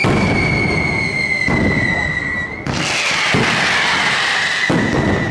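Fireworks display: a whistling firework gives a long high whistle sliding slowly down in pitch over low thuds of shell bursts. About two and a half seconds in, a sudden loud noisy burst breaks in and a second falling whistle follows.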